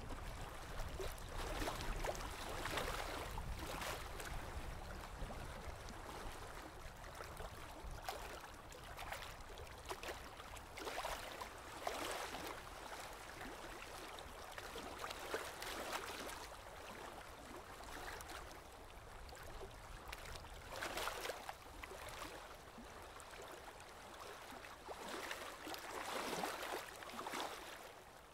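Aquarium water trickling and gurgling, a steady wash that swells and fades every few seconds, with a low hum underneath during the first few seconds.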